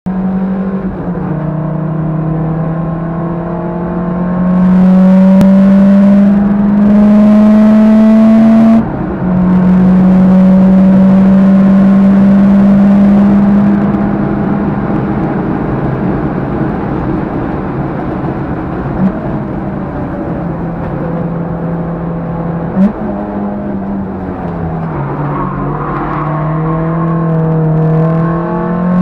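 Modified Peugeot 205 GTi's 2.0 16-valve four-cylinder engine breathing through Jenvey individual throttle bodies, heard from inside the cabin while the car is driven hard on track. It revs up loudly under full throttle, and the pitch drops sharply about nine seconds in at an upshift before climbing again. A long quieter stretch follows at lighter throttle with the revs easing, and the revs climb again near the end.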